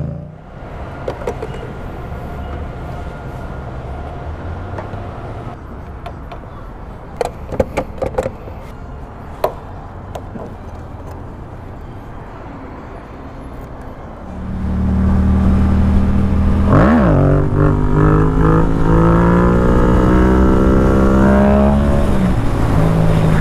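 Yamaha MT-07 parallel-twin motorcycle engine, first running low and quiet with a few sharp clicks around the middle. About two-thirds of the way in it turns loud as the bike pulls away: one quick rev with a shift, then the engine climbing steadily through the gear before another shift near the end.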